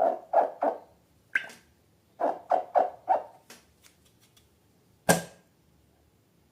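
Slime being squeezed and poked by hand: short wet squelches, about three a second, in two runs, then a few small clicks and one sharp snap about five seconds in.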